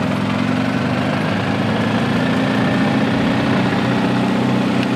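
A motor vehicle's engine running steadily at low speed with an even hum, its pitch edging up slightly about halfway through.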